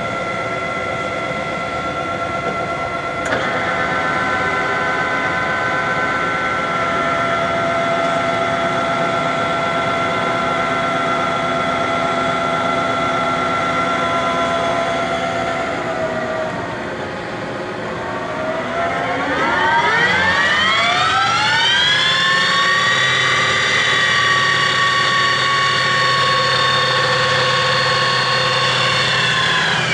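Clausing Colchester 12VS variable-speed engine lathe running with a steady gear whine. About 16 seconds in the pitch dips, then climbs over a few seconds to a higher steady whine as the spindle speed is turned up.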